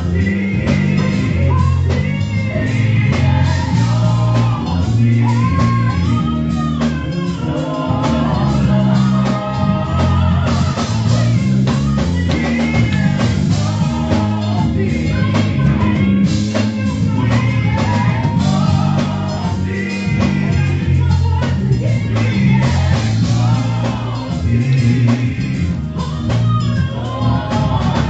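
Gospel music: a singer over a band with guitar, a heavy bass line and drums.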